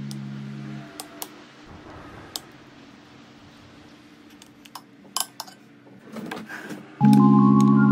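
A metal spoon clinking and scraping against a glass bowl, a few light sharp clicks, while batter is spooned over a stuffed pepper. Background music fades out in the first second and comes back loudly about seven seconds in.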